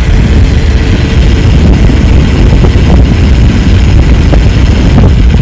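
Loud wind buffeting on the microphone of a mountain bike rider moving at speed, a heavy steady rumble, with a few faint ticks and rattles.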